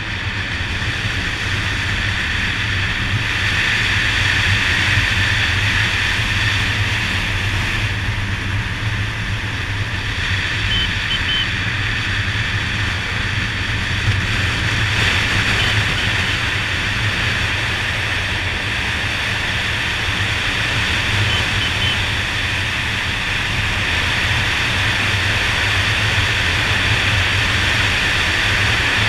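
Wind rushing over an action camera on a moving motorcycle, with the steady low hum of a Honda Dazzler's 150 cc single-cylinder engine cruising underneath. A few faint, short high chirps come through now and then.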